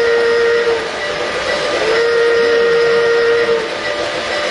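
Model steam locomotive's whistle from its sound system: one blast ending under a second in, then a longer blast of about a second and a half starting about two seconds in. Steady running noise of model trains on the track underneath.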